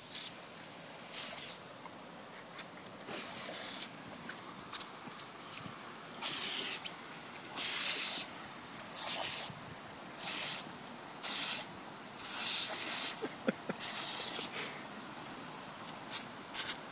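Lawn sprinkler jet spraying with a steady hiss, broken by about ten louder, irregular bursts of spattering water, each under a second, as a boxer dog bites into the stream.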